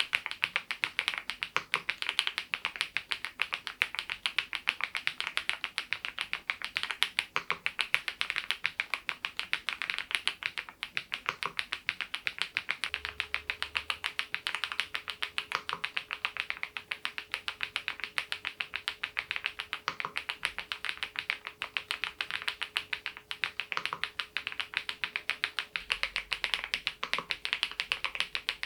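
Continuous fast typing on a Geekstar GKG87R tenkeyless mechanical keyboard fitted with HMX Mongdol linear switches: a dense, even stream of soft keystroke clacks. A faint steady hum comes in about halfway through.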